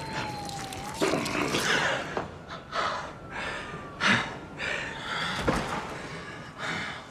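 A man breathing heavily in ragged gasps and pants, each breath a short rush of air.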